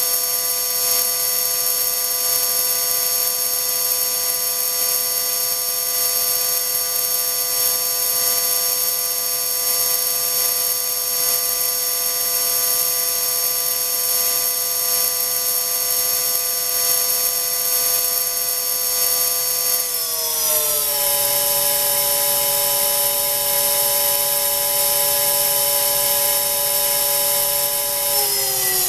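High-speed electric motor spinning on a test rig, giving a steady high whine over hiss at 30,000 rpm. About two-thirds of the way through the pitch slides down and settles as the speed drops to about 25,000 rpm, and near the end it slides down again toward 20,000 rpm.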